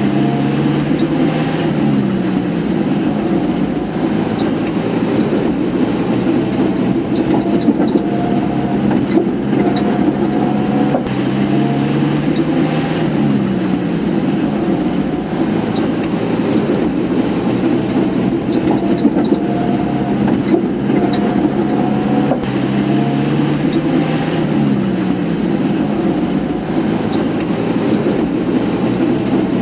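Old jeep engine running steadily, its pitch sliding down three times, about every eleven seconds.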